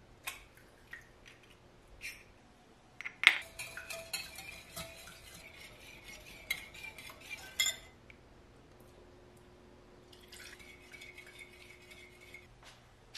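A few light taps and one sharp knock on a glass mixing bowl as an egg is cracked, then a wire whisk beats the egg in the glass bowl with rapid clinking for several seconds. After a short pause the whisking starts again, more quietly, near the end.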